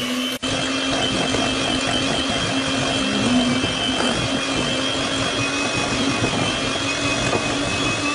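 Electric mixer running steadily at speed, its wire whisk beating egg yolks and sugar: a steady motor whine, with a brief break about half a second in.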